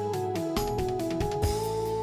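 Background music: held notes stepping through a melody over a drum beat.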